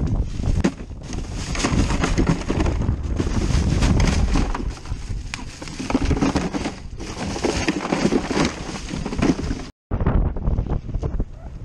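Wind buffeting the microphone, with rustling, knocking and scraping as hands handle ice and a plastic bag in a boat's fish cooler.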